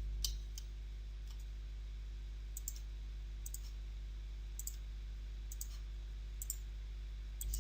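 Computer mouse clicking about a dozen times, several in quick pairs, as items are selected one after another. A low steady hum runs underneath.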